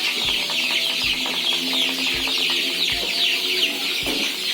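A flock of young chickens peeping and cheeping continuously, many short high chirps overlapping, with a few longer, lower calls. A low, dull thump comes about once a second.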